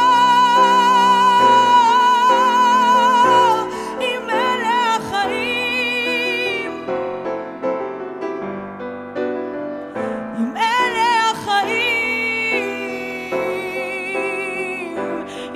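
A woman singing a Hebrew ballad live over piano chords. She holds one long high note with vibrato for about three and a half seconds, then sings short wordless runs over the piano.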